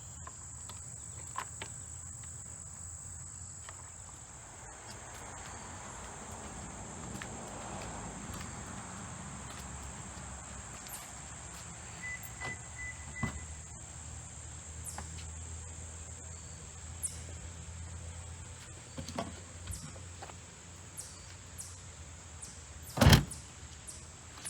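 Steady high-pitched insect drone over a low hum, with scattered small clicks and one loud thump near the end, the kind of sound a car door makes shutting.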